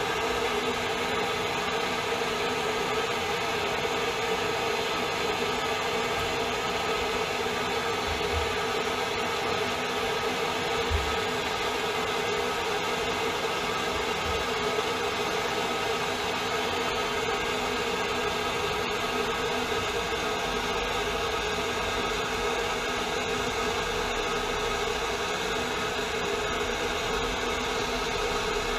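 Handheld gas torch burning with a steady hiss as it heats a copper pipe fitting for soldering (sweating the joint). A few soft low knocks come about a third of the way in.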